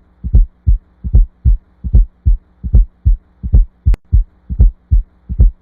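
Recorded heart sounds at about 75 beats a minute, each beat a close pair of low thuds followed by a single one: the gallop rhythm of a fourth heart sound (S4) just before the first heart sound. A faint steady hum runs underneath, and one sharp click falls near the middle.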